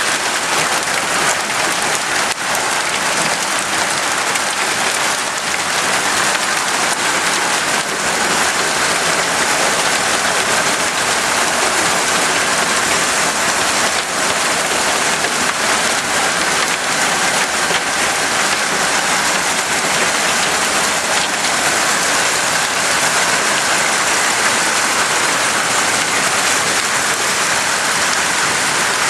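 Heavy hail falling: a dense, steady hiss of hailstones striking hard surfaces.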